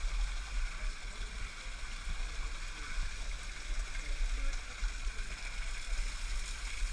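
Water sloshing and trickling as people swim through a slot-canyon pool, over a steady low rumble.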